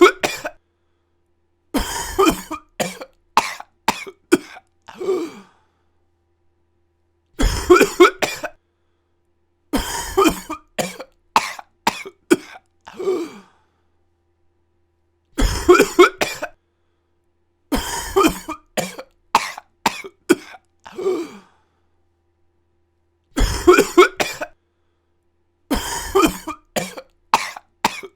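A person coughing in repeated fits, each a quick run of several coughs, with a few seconds of dead silence between fits.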